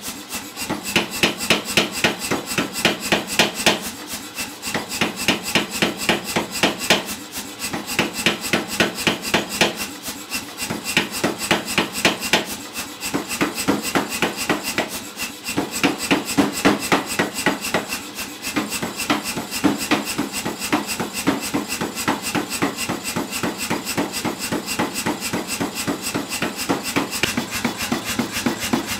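Power hammer striking a glowing steel bar in rapid, even blows, several a second, with short pauses every few seconds. The smith is shaping the upset end of the bar into a ball.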